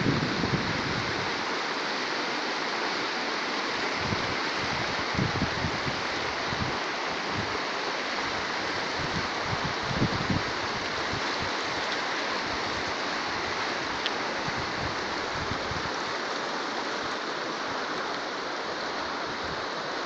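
Fast, shallow mountain river rushing over a stony bed: a steady hiss of water, with a few brief low thumps, the first near the start and two more several seconds apart.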